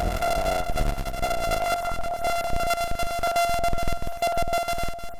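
Electronic music demo of a bitcrusher plugin: a single held synthesizer note, crushed and made gritty with many buzzing overtones, broken up by a fast glitchy stutter of rapid clicks.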